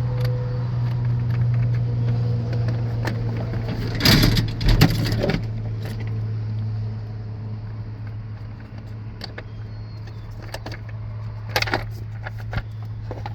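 Scotts riding mower's 20 hp Briggs & Stratton engine running steadily with a low hum, with a burst of clattering knocks about four seconds in and a few more sharp knocks near the end.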